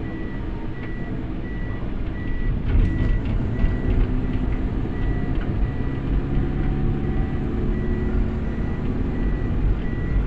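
A van's in-cabin warning beeper sounding a steady, evenly spaced high beep over and over, over the low rumble of the moving van's engine and tyres.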